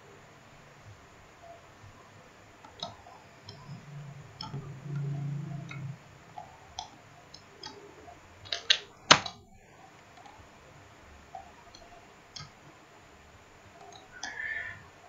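Scattered clicks of a computer mouse, about a dozen, spaced irregularly, with a quick cluster and one louder click about nine seconds in.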